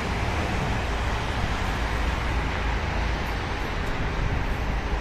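Steady noise of busy multi-lane road traffic: the tyres and engines of many passing cars blend into one continuous wash, heaviest in the low rumble.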